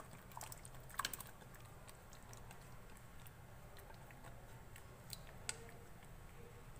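Faint wet plops, taps and scrapes as marinated chicken pieces slide from a bowl into a pan of masala paste and a spatula scrapes the rest out of the bowl, with a few short clicks about a second in and again around five seconds.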